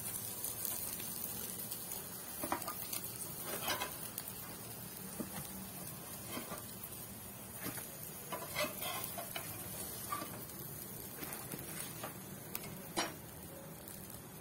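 Oil sizzling steadily on a tawa after shallow-frying potato tikkis, with a few scattered scrapes and clicks of a metal spatula against the pan as the tikkis are lifted off.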